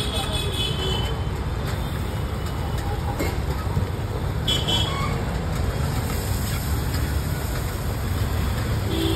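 Pav bhaji vegetables being mashed with hand mashers on a large flat steel griddle, with a few faint knocks of the masher against the griddle over a steady low rumble.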